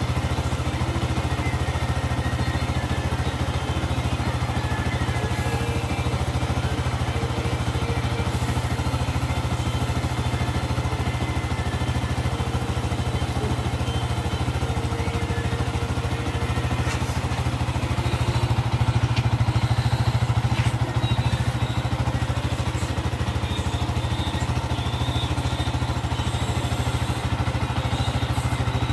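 Yamaha Sniper 150's single-cylinder four-stroke engine idling steadily through its stock exhaust, a little louder for a few seconds about two-thirds of the way in.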